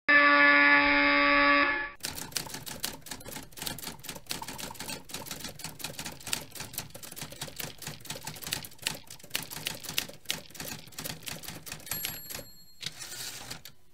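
A loud, steady electronic tone for about two seconds that cuts off sharply, followed by a rapid, continuous run of typewriter key clicks, with a brief high ringing tone near the end.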